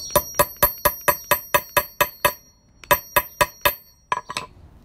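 A hammer striking a steel grommet hole-punch cutter to punch a hole through fabric. A quick run of about a dozen blows, roughly five a second, each with a high metallic ring, then a short pause and two shorter runs of blows.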